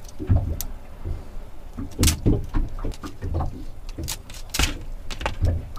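A kitchen knife cracking and crunching through raw spiny lobster tail shell: irregular sharp cracks several times, with low knocks and rustling between them.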